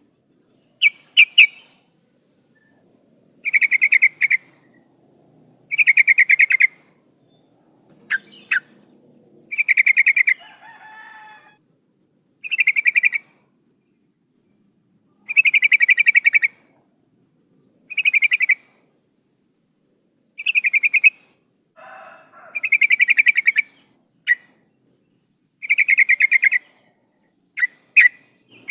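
Yellow-vented bulbul (trucukan) calling: short, rapid chattering bursts about every two to three seconds, with a few sharp single chirps between them. It is presented as a female calling to attract a male.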